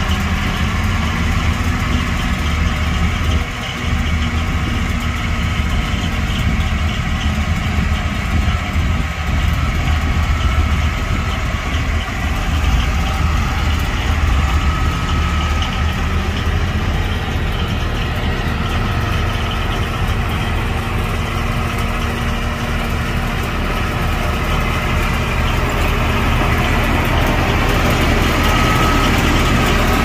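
Heavy earthmoving machine's diesel engine running steadily, its pitch dropping a little and later rising back.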